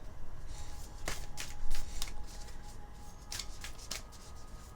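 A deck of Moonology oracle cards being shuffled by hand: an irregular run of quick papery snaps and slides, one louder snap a little before the middle.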